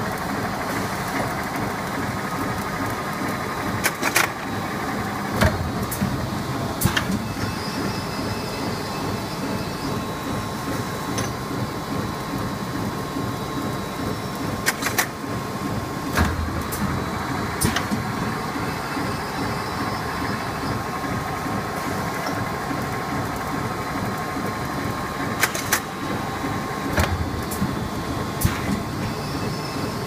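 GUR-IS PS-ROLL 420 polyethylene bag-making machine running: a steady mechanical hum with a constant high whine, broken every so often by sharp clicks that come in runs of two or three about a second and a half apart.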